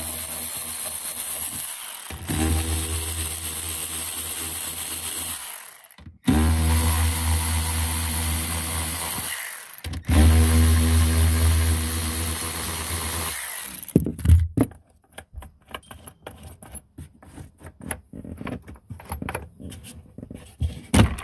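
Cordless Milwaukee M12 ratchet running in three steady whirring runs of about four seconds each, spinning 10 mm nuts off their studs. For the last several seconds there are scattered light clicks and clinks of loose metal parts being handled.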